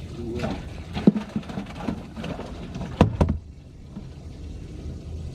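A few sharp knocks and some clatter of gear being handled in a fishing boat, the loudest a quick pair about three seconds in, over a low steady hum.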